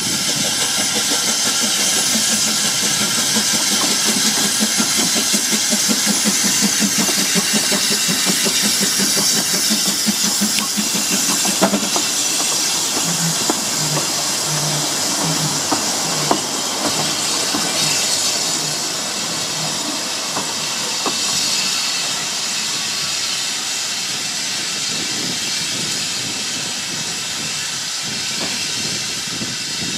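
Narrow-gauge steam locomotive and its coaches running past, with a steady hiss of escaping steam over an even chuffing beat in the first part, then the low repeated thud of the wheels and a few sharp clicks as the train goes by.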